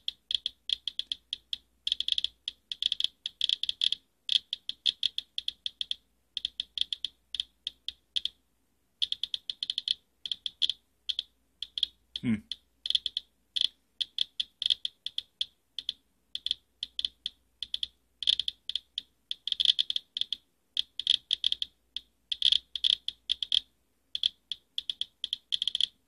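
Radalert Inspector Geiger counter clicking fast and irregularly in uneven clusters as it reads around 460 to 530 counts per minute against a used space-heater air filter. The high click rate is the sign of radioactive material built up in the filter.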